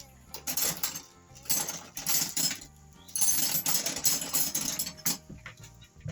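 Metal scraping and clanking in three bursts, the longest lasting about two seconds near the middle, from working a tire bead over a rim on a manual tire changer, over background music.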